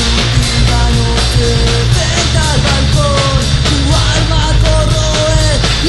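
Punk rock band playing loudly and steadily, a full band with a melody line over it.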